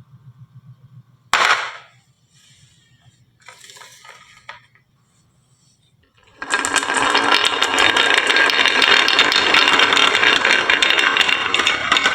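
Marbles on a marble run: a single sharp clack about a second in, a little scattered clattering, then from about halfway a loud continuous rattle of many marbles rolling and clicking down the track together.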